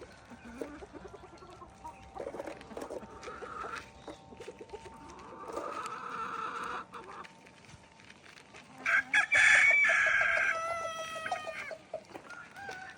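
Fighting-cock rooster crowing loudly once, about nine seconds in, the crow lasting close to three seconds. Before it come short clucks and calls from chickens.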